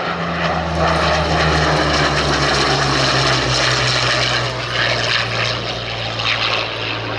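Hawker Sea Hurricane's Rolls-Royce Merlin V12 engine in a flypast: a loud propeller drone that drops in pitch as the fighter goes by.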